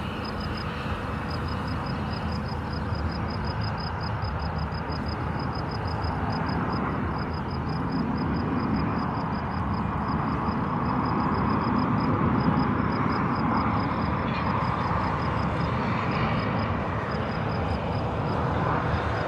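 Airbus A350-900's Rolls-Royce Trent XWB jet engines during a touch-and-go: a steady jet rumble that swells around the middle and eases off again. A fast, even, high-pitched ticking, several ticks a second, runs alongside.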